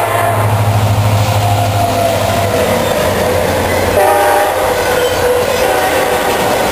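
CSX freight train passing close by. The lead diesel locomotive's horn chord and engine drone are heard for the first two seconds or so. After that the autorack cars roll past with a steady rumble of wheels on rail, clickety-clack and some wheel squeal.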